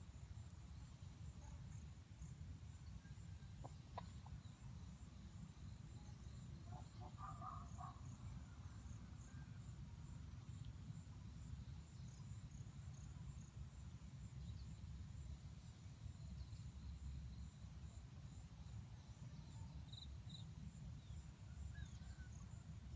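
A chicken calls once, briefly, about seven seconds in, faint over a steady low outdoor rumble. Faint high chirps and a thin steady high tone run underneath.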